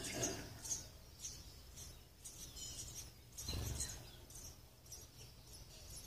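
Sparrows chirping at the nest while an adult feeds the chicks: short high chirps, several in the first second and more scattered after. A dull low bump sounds about three and a half seconds in.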